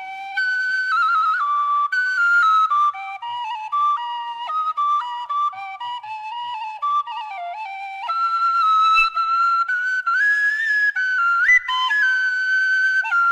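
Khmer bamboo flute playing a solo melody: quick stepping notes at first, then longer held high notes, with a leap upward near the end.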